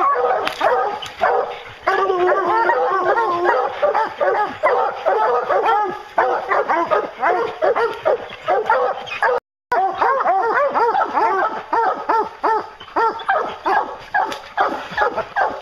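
Several hunting hounds baying and barking over one another without a break, calling at the base of a tree: the tree bark that signals a treed black bear. The sound cuts out for a moment about halfway through.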